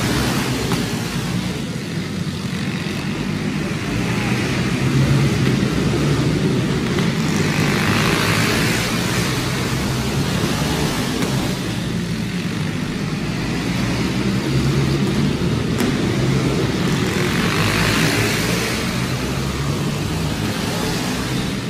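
Several racing go-karts' small engines running together as the pack laps a dirt oval. The sound swells each time the karts pass close, about every ten seconds.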